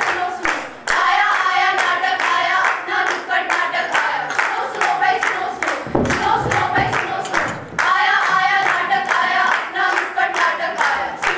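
A group of young women singing together in unison while clapping their hands in a steady rhythm, with a short break in the singing a little past halfway.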